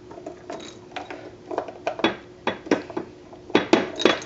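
Freeze-dried salmon cat treats shaken from a jar and dropping into ceramic cat bowls, with the jar knocking against the bowls: a string of irregular light clicks and knocks, busiest near the end.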